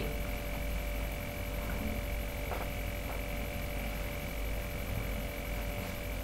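Steady electrical hum with hiss, the recording's background noise, with a couple of faint ticks a little before the middle.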